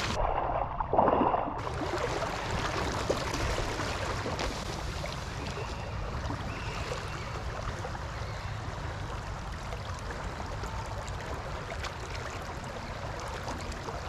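Steady rush of a flowing river current around a wading angler, with a brief louder sound about a second in.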